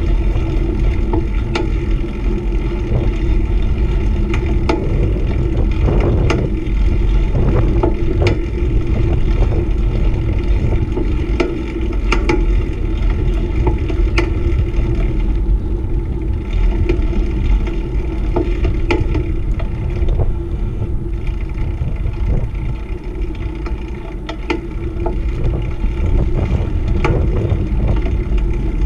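Ride noise from a beach cruiser: wind rumbling over the bike-mounted camera's microphone and tyres rolling on rough, cracked asphalt, with scattered sharp clicks and rattles from the bike jolting over the cracks.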